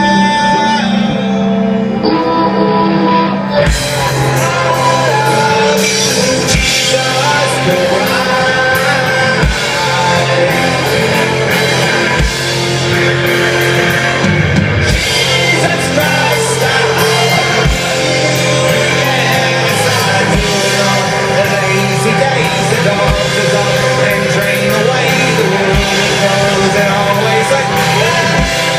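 Live rock band playing with singing, heard from within the crowd. It opens on held notes, then the full band with drums comes in about three and a half seconds in.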